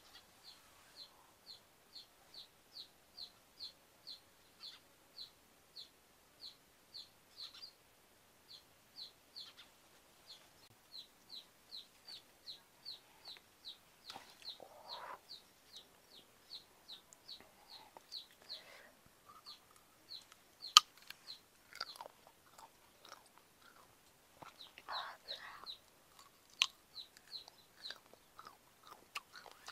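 A bird's short high chirp repeats about two to three times a second throughout. Over it come rustling as a ripe noni fruit is pulled from the tree, and later chewing and biting as the fruit is eaten, with two sharp clicks standing out.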